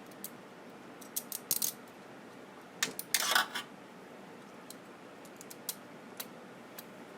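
Small parts of a CD/DVD changer's disc mechanism clicking and rattling as they are fitted back together by hand: a few sharp clicks about a second in, a louder short rattle about three seconds in, then a few faint ticks.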